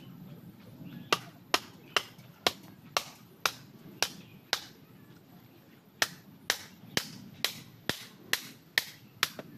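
Repeated sharp blows of a hand tool, about two a second, in two runs of eight strokes with a short pause between them.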